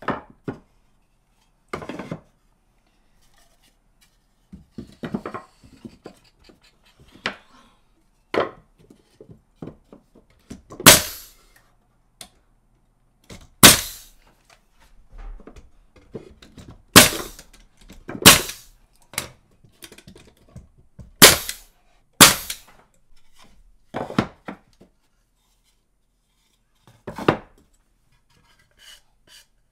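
A nail gun shooting nails into pine boards, about six sharp shots one to three seconds apart, with lighter knocks of wood being handled and set in place between them.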